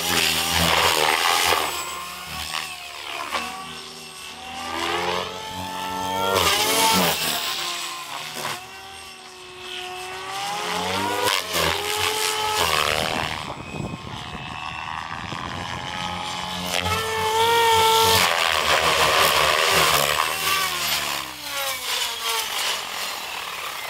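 SAB Goblin Raw 700 electric RC helicopter with an Xnova brushless motor in fast flight: the whine of motor and drivetrain glides up and down in pitch again and again as it passes and changes load, over the rush of the main rotor blades. It is loudest near the start and again a little before the end.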